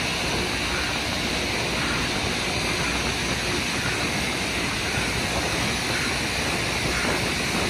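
Loram rail grinder passing close by, its spinning grinding stones on the rail making a steady, harsh hissing noise.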